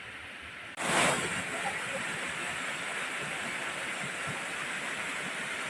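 Steady rush of a waterfall. About a second in it jumps abruptly louder with a brief loud surge, then holds at the louder level.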